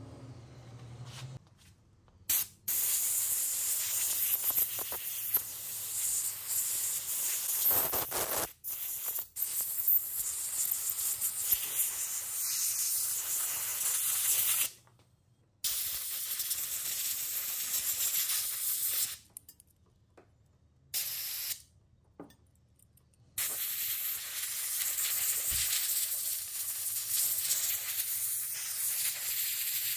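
Aerosol spray can with an extension straw hissing in several long bursts, with short pauses between them.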